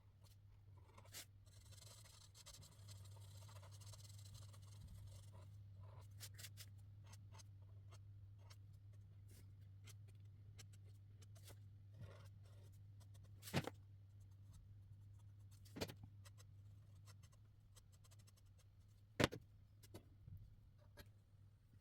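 Marker tips stroking and scratching on paper, faint and close, with a few sharp clicks in the second half.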